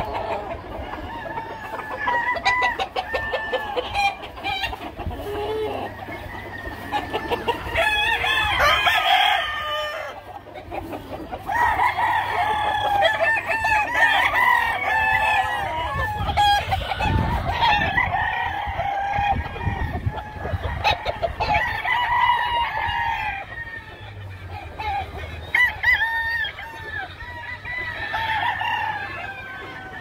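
Many caged gamefowl roosters crowing over one another, one call after another through the whole stretch, with clucking mixed in.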